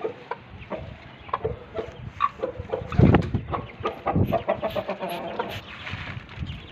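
Aseel chickens clucking: short calls in irregular succession, with a quick run of clucks about four to five seconds in and a few low thumps, the loudest about three seconds in.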